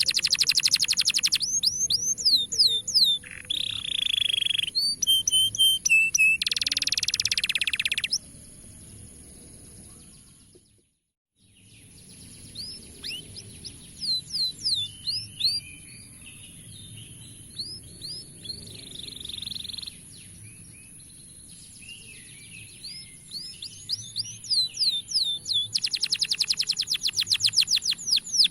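Domestic canary singing: fast trills of falling sweeps, buzzy rolls and scattered chirps, with a steady high tone underneath. The song cuts out to silence for about a second near the middle, then resumes more softly before a loud trill returns near the end.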